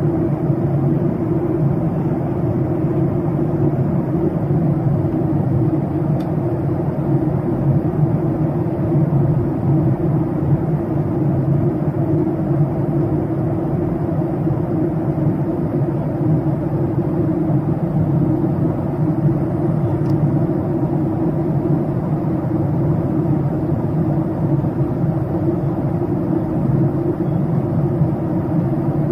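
Steady, unchanging cabin drone of a Boeing 737-800 in flight: the noise of its CFM56-7B turbofans and the airflow over the fuselage, heard from a passenger seat as a deep hum.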